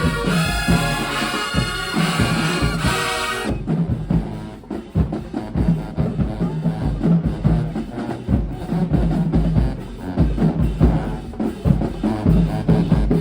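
High school marching band playing: brass and drums together, then the horns stop about three and a half seconds in and the drumline carries on alone with a snare and bass drum cadence.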